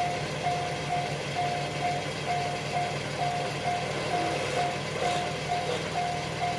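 Japanese railway level-crossing alarm ringing, the same electronic ding repeated evenly about twice a second, over a steady low hum.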